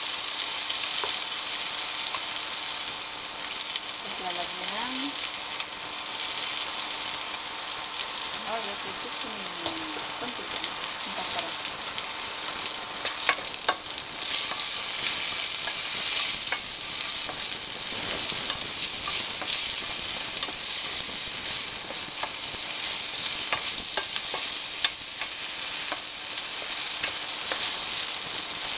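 Potato and carrot sticks sizzling steadily in oil in a nonstick frying pan. A spatula stirs and turns them, clicking and scraping against the pan more often from about halfway through.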